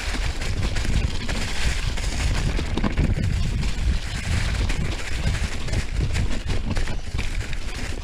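Mountain bike rolling fast downhill over dry fallen leaves: wind buffeting the camera microphone, tyres crunching through the leaf litter, and frequent small knocks and rattles from the bike over roots and rocks.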